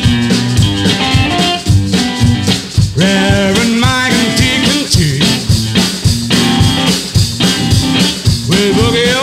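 Background music: a blues-rock song with electric guitar and drums keeping a steady beat, and a bending melody line coming in about three seconds in.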